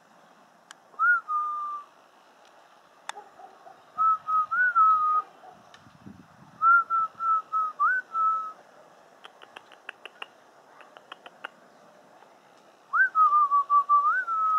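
Clear whistled notes in four short phrases, each a few held tones with small upward flicks. A run of faint quick ticks falls midway.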